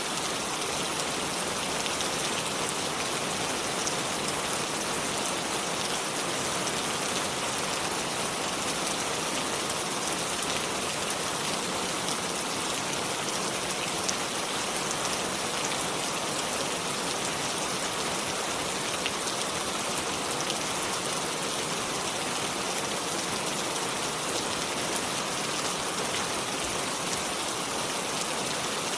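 Steady, even water noise: a dense hiss with a fine pattering texture, unchanging throughout.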